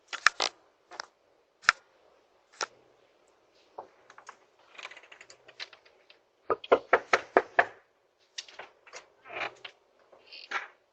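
A string of sharp knocks and clicks: a few scattered ones at first, then a quick run of about seven knocks in a second around the middle, followed by more irregular taps.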